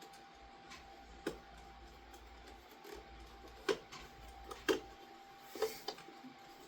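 A few sharp clicks and knocks, four or so spread over several seconds, from the center console's aluminum latch assembly being handled and worked against its mounting hooks.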